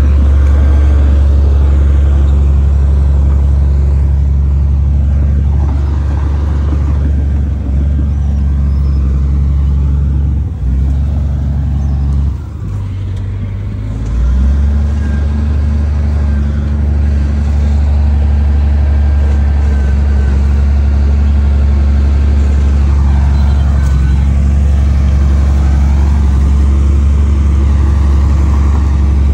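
Heavy diesel engine of an earthmoving machine running steadily with a deep, loud hum. Its note dips and shifts briefly near the middle, then settles back.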